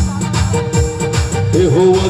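Live amplified band music through stage loudspeakers: electronic keyboard chords over a steady drum beat, with a singer's voice coming in about one and a half seconds in.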